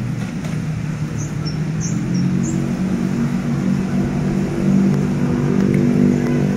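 Steady engine rumble of nearby road traffic, getting a little louder in the second half. A few short high chirps sound between about one and two and a half seconds in.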